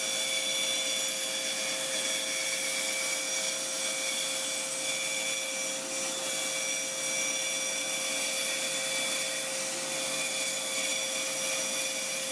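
Bandsaw running with a steady hum, its blade cutting through half-inch birch plywood as the board is fed into it.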